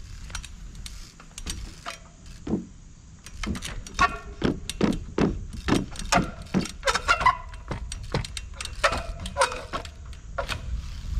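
A trials bike hopping along narrow wooden rails: an irregular run of sharp knocks and clatters, two to three a second, as the tyres land and bounce on the wood, some with a short ringing tone.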